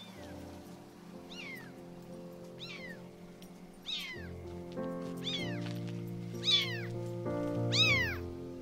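Stray kitten meowing again and again: seven high cries, each falling in pitch, about one every second and a bit, growing louder toward the end. Background music plays under the cries.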